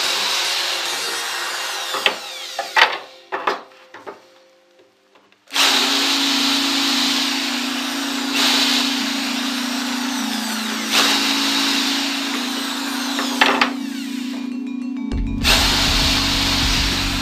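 Hand-held corded electric drill boring into laminated chipboard, the motor running and the bit cutting. About three seconds in it stops with a few knocks and goes quiet for a couple of seconds, then starts again and runs steadily.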